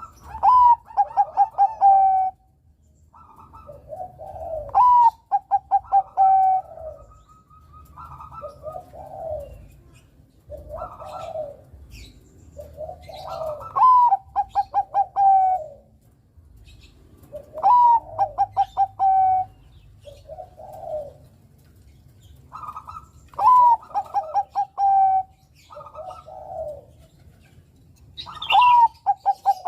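Zebra dove (perkutut, Bangkok strain) singing, its phrase repeated every four seconds or so: a rising opening note, then a fast run of short stuttering notes, with a lower coo between phrases.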